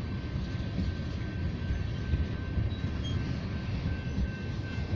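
Loaded tank cars of a freight oil train rolling past, a steady rumble of wheels on the rails.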